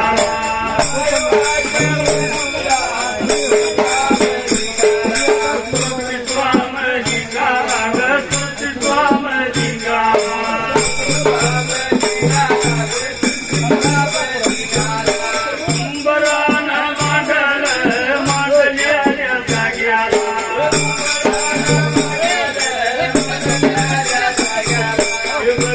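Instrumental passage of Dhangari ovi folk music: steady drum beats with rattling, jingling percussion and held melodic notes, without singing.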